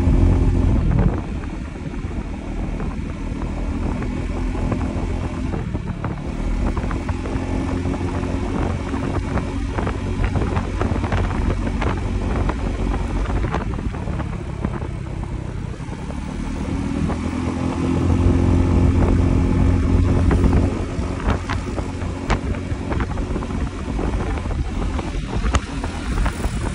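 Motorcycle engine running at a steady cruise with wind noise, heard from the rider's seat; the engine swells louder for a few seconds about two-thirds of the way through.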